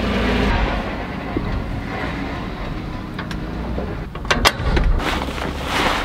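Toyota forklift's engine running with a steady low rumble, then a few sharp knocks and a short burst of rustling near the end.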